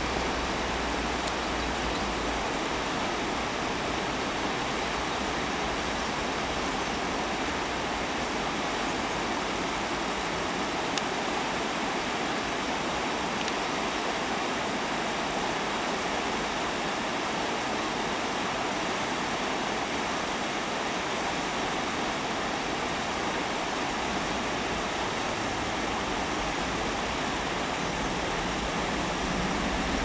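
Fast-flowing river rushing over rocky rapids: a steady, even roar of water.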